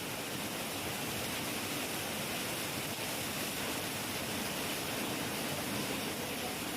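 Heavy rain falling in a steady, even hiss, with no thunderclap.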